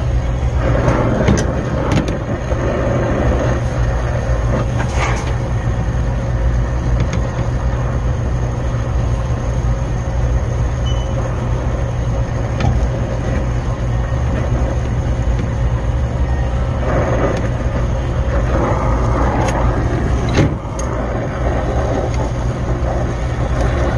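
Oxy-acetylene torch flame burning steadily, a constant low rumble with a hiss, while brazing a Danfoss thermostatic expansion valve joint, with a few light clicks.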